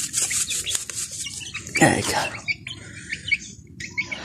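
Dry fish-food pellets rattled out of a foil packet with quick shakes in the first second or so, then birds chirping, with one louder call about two seconds in.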